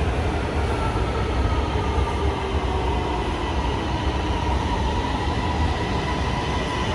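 Orange Line electric metro train running alongside the platform as it slows to a stop: a steady rumble of wheels on rail, with a faint whine from the drive that slowly falls in pitch as the train brakes.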